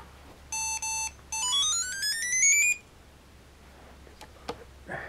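Electronic start-up tones from a hobby rover robot's onboard speaker: two short buzzy beeps, then a quick run of beeps stepping upward in pitch for about a second and a half.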